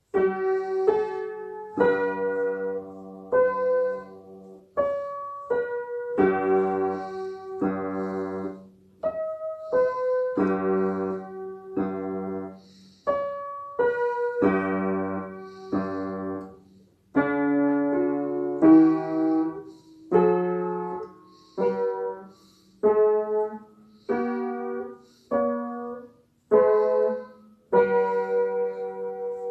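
A child playing a simple classical minuet on an upright piano, single notes and light chords struck in short phrases with brief pauses between them.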